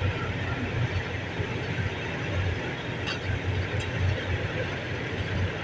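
Heavy diesel machinery running: the Komatsu PC300 excavator and the Hino 500 dump truck at work, a steady low rumble that swells and eases, with a couple of brief clanks about three and four seconds in.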